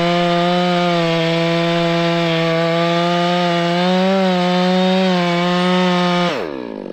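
Two-stroke chainsaw with a lightweight 36-inch bar running at full throttle, cutting through a tree stump, its pitch steady with slight dips under load. About six seconds in the throttle is released and the engine note falls quickly toward idle.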